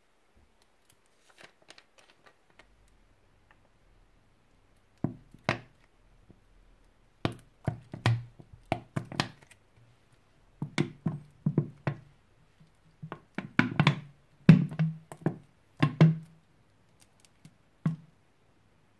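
Tonic water being poured from a plastic bottle onto slime: irregular glugs and knocks of the bottle and the liquid, in clusters of two or three a second, with faint ticks before the pouring starts.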